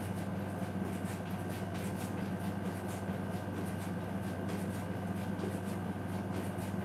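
A steady low hum, with light, irregular taps and scuffs of sneakers landing on a tile floor during jumping exercises.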